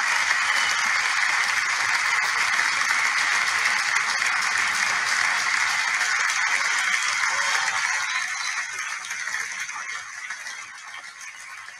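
Dense applause from a crowd, steady and then fading out over the last few seconds.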